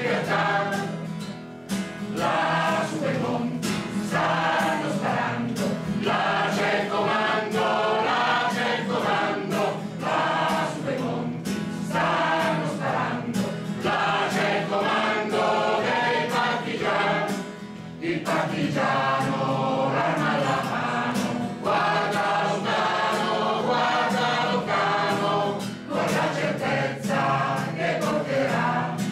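Mixed choir of men and women singing an Italian partisan song in unison, with an acoustic guitar strummed in a steady rhythm as accompaniment.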